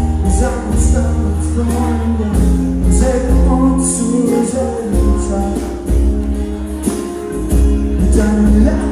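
Band music with a steady beat, a strong bass line and singing.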